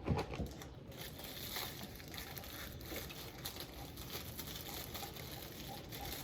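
A thump, then plastic snack-cake wrappers crinkling and rustling as they are handled and opened.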